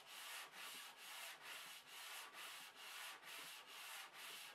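Faint, even back-and-forth rubbing of a paper-wrapped wooden strip sliding along a corroded mitre slot in a cast iron saw table, scouring out the rust. The strokes come in a steady rhythm of roughly two to three a second.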